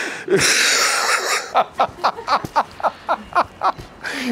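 A man's high, wheezing laugh: a long breathy hiss, then a fast run of short "ha" bursts, about seven a second.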